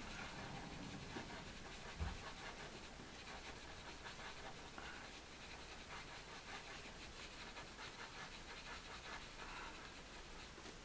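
Faint scratching of a Caran d'Ache pastel pencil on textured pastel paper in short, repeated strokes, with one soft low knock about two seconds in.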